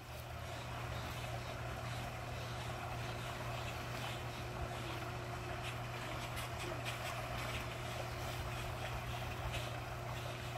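A steady low motor hum that grows louder over the first second, with light splashing of water on top.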